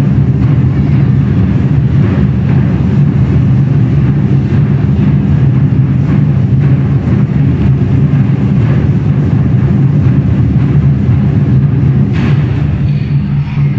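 A troupe of 24 Festive Drums players beating large barrel drums together, a loud, dense drumming whose beats blur into a steady low rumble.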